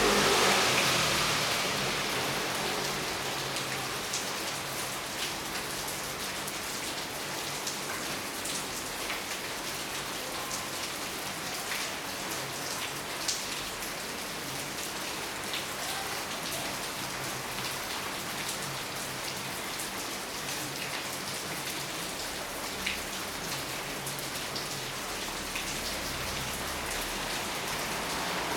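Steady rain falling, an even hiss with scattered individual drop ticks. A louder whoosh at the start fades away over the first couple of seconds.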